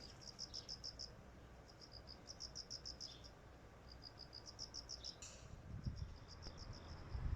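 Faint crickets chirping: quick, high-pitched trains of short pulses that repeat every second or so. A brief rustle comes about five seconds in.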